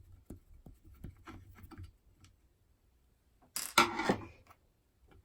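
Light clicks and scrapes of a 5-lever mortice lock being handled and worked on by hand, then a brief, much louder clatter about three and a half seconds in.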